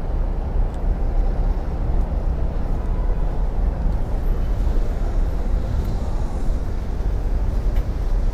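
Steady outdoor city background noise: a constant low rumble with no distinct events standing out.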